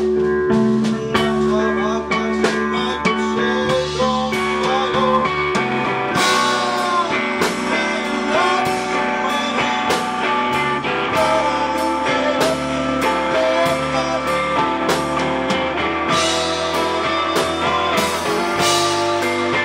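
Live rock band playing: electric guitar with a man singing, over drums keeping a steady beat.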